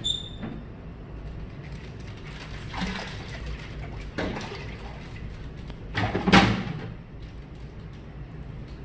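Aquarium water splashing as an arowana lunges at live feeder fish at the surface: a splash about three seconds in, another just after four, and the loudest about six seconds in. A steady low hum runs underneath.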